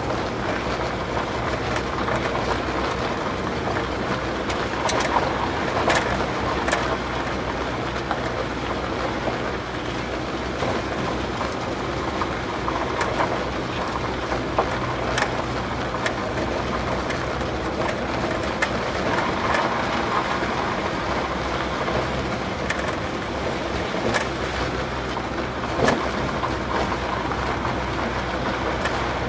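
A VW bus driving slowly on a gravel road, heard from inside the cab: a steady engine drone over the rumble of tyres on loose gravel, with a few sharp clicks and knocks scattered through.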